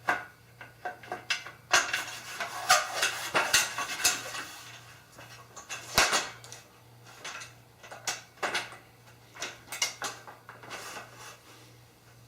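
Aluminium extrusions and metal hardware clinking, scraping and knocking as they are handled and slid together, with irregular clicks throughout and one sharper knock about six seconds in.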